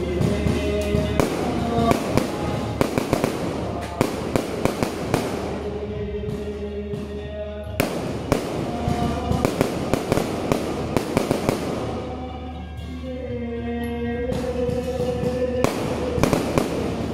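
Aerial fireworks going off in a rapid, irregular series of sharp bangs and crackles, with music playing underneath.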